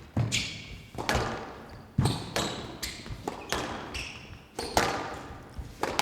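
Squash rally: the rubber ball being struck by rackets and smacking off the court walls, about ten sharp echoing hits at uneven intervals of roughly half a second to a second, with short high squeaks between some of them.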